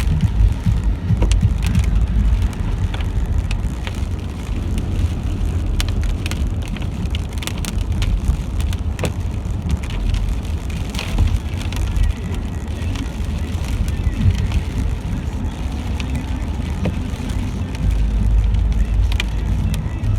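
Rain falling, with many separate drops tapping sharply at irregular moments over a steady low rumble that swells near the end.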